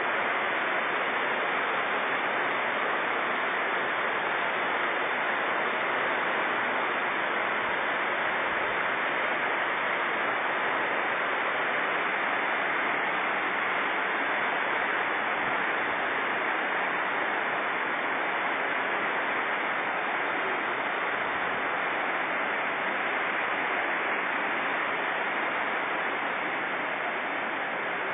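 A swollen river in flood rushing past in a steady, even noise, easing slightly near the end.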